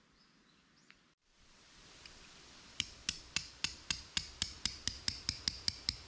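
A hammer driving a tent peg into the ground: a steady run of about fourteen sharp strikes, each with a short ring, about four a second, starting about three seconds in.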